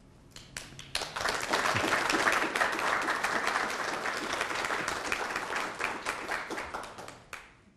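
Audience applauding: scattered claps at first, swelling to full applause about a second in, then thinning out and dying away near the end.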